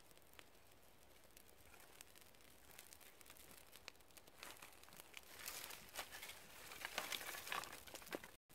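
Small tinder fire just catching, with faint scattered crackles. About halfway through, a bundle of dry twigs is gathered and handled, giving a louder dry rustling and crackling.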